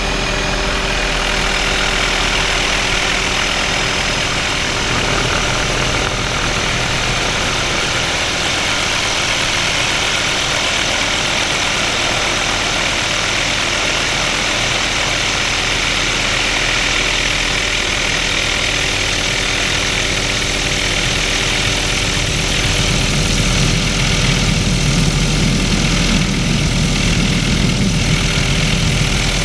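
Helicopter in flight with its doors off: steady engine and rotor noise with several constant tones, mixed with wind rushing through the open cabin. Near the end the low wind rumble grows heavier.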